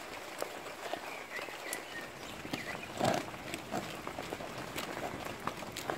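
A metal spoon stirring damp chicken mash of grains and seeds in a plastic bowl: irregular clicks and scrapes of the spoon against the bowl and through the feed, with a louder scrape about three seconds in.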